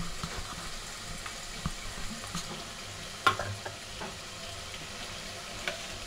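Onion and curry-leaf tempering frying in oil in an aluminium pot: a steady sizzle with scattered crackles and pops, one sharper pop a little past halfway.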